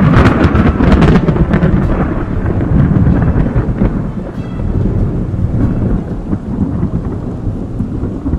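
Thunder sound effect: a sudden loud crack with crackling strokes, then a long rolling rumble that slowly fades.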